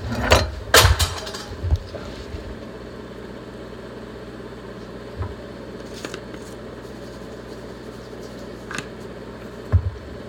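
Steady mechanical hum in a kitchen, with a few knocks and clatters of cooking utensils in the first two seconds and a few light knocks later on.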